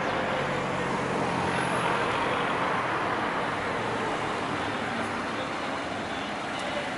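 A line of cars and a small flatbed truck driving past one after another: a steady wash of engine and tyre noise.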